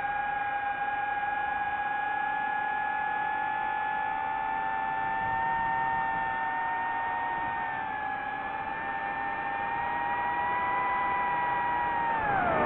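DJI FPV quadcopter's motors and propellers whining at a steady high pitch, the tone wavering and splitting slightly with small throttle changes. Near the end the pitch rises a little and then drops sharply as the throttle is cut and the drone dives.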